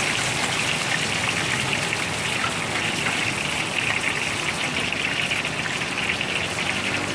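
Hot oil in a large wok sizzling and bubbling steadily as a batch of insects deep-fries.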